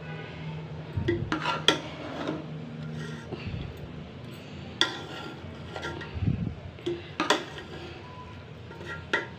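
A metal spoon scrapes and clinks against an aluminium pot as cooked biryani rice is turned over. It makes a handful of sharp clatters a second or more apart over a low steady hum in the first few seconds.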